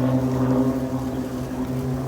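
Propeller aircraft engine running with a steady, even-pitched drone.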